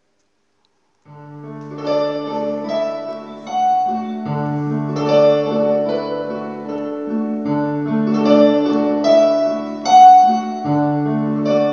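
Instrumental introduction to a song: keyboard chords with a melody over long held bass notes, starting about a second in.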